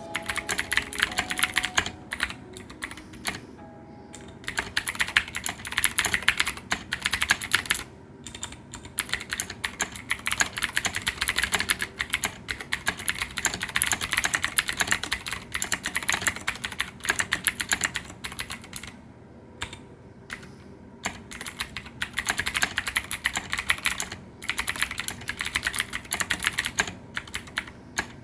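Typing on a Leopold FC750R mechanical keyboard with clicky blue switches and SA-profile PBT keycaps. Fast, dense key clicks come in runs broken by a few short pauses.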